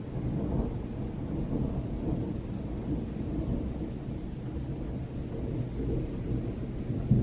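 Rolling thunder from a heavy rainstorm: a long, low continuous rumble that swells louder again near the end.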